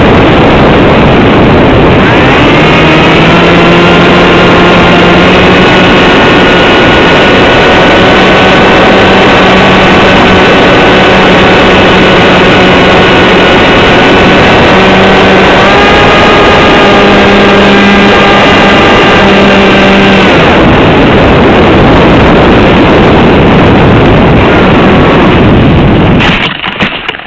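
Z84 flying wing's electric pusher motor whining at a steady pitch under loud wind rush on the onboard camera microphone. The whine starts about two seconds in, steps up slightly past the middle, and drops out around three-quarters of the way through, leaving only the wind rush, which cuts off suddenly at the very end.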